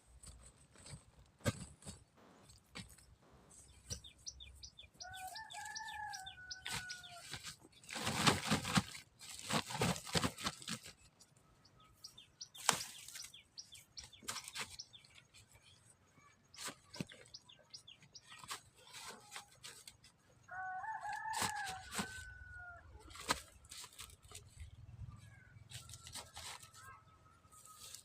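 A rooster crows twice, each crow about two seconds long, the first a few seconds in and the second about two-thirds of the way through. Between them come loud bursts of rustling noise, and scattered clicks run throughout.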